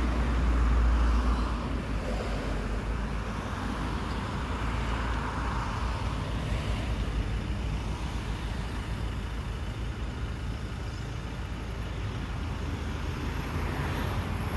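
Cars passing on a suburban street, tyre noise swelling and fading as each goes by, over a steady low rumble that is strongest in the first two seconds.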